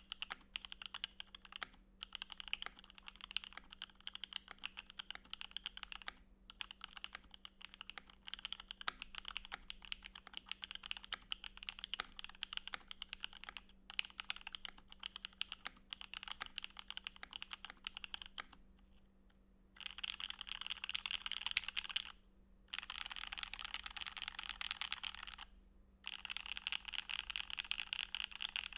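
Typing on a KBD67 Rev2 mechanical keyboard in a stacked acrylic case, with lubed, filmed Jwick Yellow linear switches under PBT keycaps: a rapid run of keystrokes broken by short pauses. About two thirds of the way through there is a longer pause, then louder, denser bursts of keystrokes.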